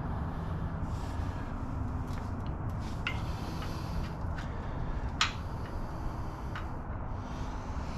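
Several sharp light clicks of metal bolts and tools being handled, the loudest about five seconds in, over a steady low rumble.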